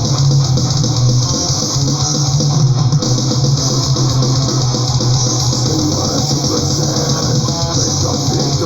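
Death-thrash metal recording playing: electric guitar riffing over bass guitar, loud and continuous.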